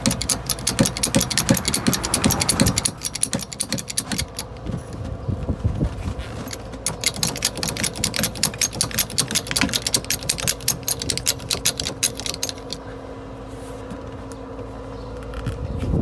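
Rapid mechanical clicking of a hand tool being worked during bead breaking, many clicks a second. It stops about thirteen seconds in, leaving a steady low hum.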